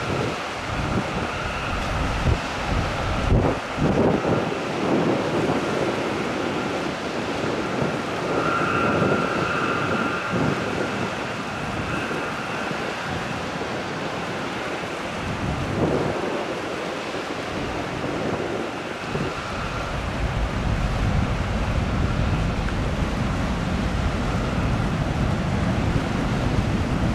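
Wind buffeting the microphone over the low rumble and water wash of a passing E-Flexer class ro-pax ferry. A faint steady whine runs under the noise until about two-thirds of the way through, after which the low rumble thickens as the stern and its churning wake go by.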